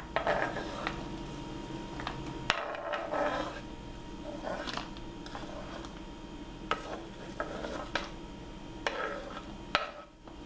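Diced onion being scraped with a knife off a wooden cutting board into a plastic bowl: irregular scrapes of the blade across the wood and light taps and clicks as the pieces fall.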